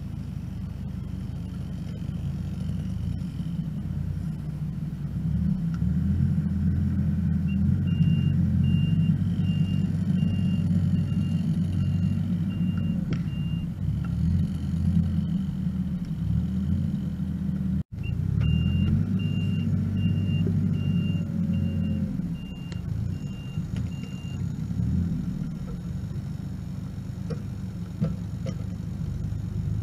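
Kubota R430 articulated loader's diesel engine working hard, rising under load as the grapple lifts and drags a log, then easing back near the end. Twice, for several seconds each, the loader's backup alarm beeps steadily, about two beeps a second, the sign that it is reversing.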